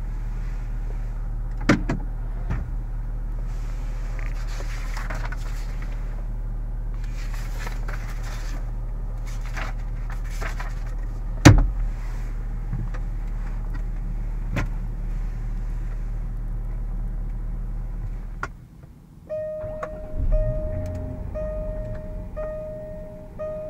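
Supercharged 3.0-litre V6 of a 2014 Jaguar XF idling, heard as a steady low hum inside the cabin, with a few clicks and one sharp knock about halfway. About three-quarters through the engine hum stops and an in-car warning chime starts, repeating more than once a second.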